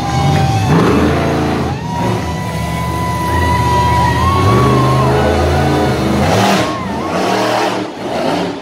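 Monster truck engine revving hard, its pitch rising and falling with the throttle, then dropping away near the end as a rougher noise takes over.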